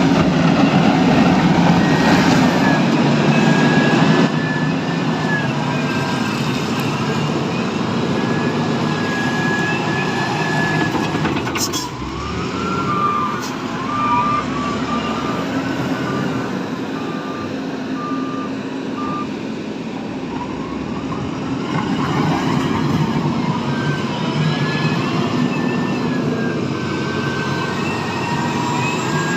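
Heavy diesel construction machine running under load, with a whine that glides up and down as the engine works. It is loudest for the first four seconds. From about 13 to 19 seconds a reversing alarm beeps roughly once a second.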